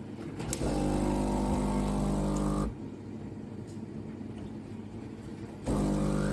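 Espresso machine's 15-bar pump buzzing in two runs: about two seconds after a click near the start, then again from near the end. It is working while the machine fails to make coffee, which the owner takes for a fault.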